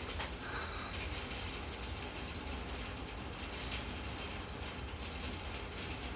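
Steady background noise with a fine, even crackle and a low hum underneath.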